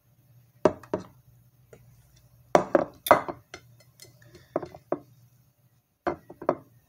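A white plate being set down and moved about on a table, with hands handling the food on it: sharp knocks and clinks in four short clusters.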